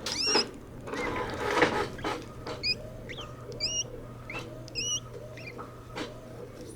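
Golden hamster breathing noisily through its open mouth, with a short high squeak on each breath about every half second, snoring-like. There is some rustling in the first two seconds.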